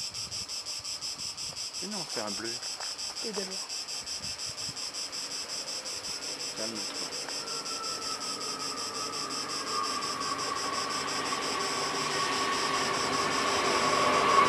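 Summer insects keep up a fast, steady pulsing chirr while an approaching SNCF Z 27500 (AGC) electric multiple unit is heard as a steady, slightly falling tone. It grows steadily louder over the last several seconds as the train nears.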